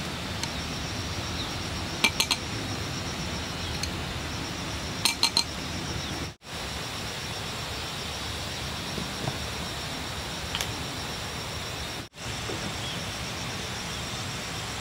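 Light clinks of kitchenware, two quick runs of about three clinks each, near two and five seconds in, then a few fainter taps, over a steady background hiss. The sound drops out briefly twice.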